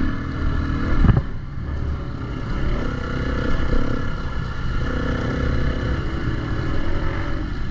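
Dirt bike engine running while riding, its note rising and falling with the throttle, with a sharp loud peak about a second in and a brief dip after it.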